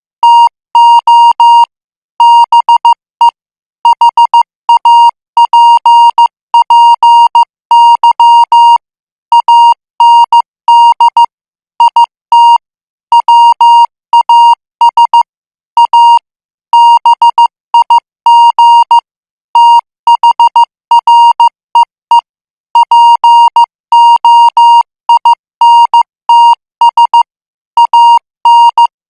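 International Morse code practice sent at 14 words per minute: a single steady beep keyed on and off in short dots and longer dashes, with brief gaps between characters and longer gaps between words.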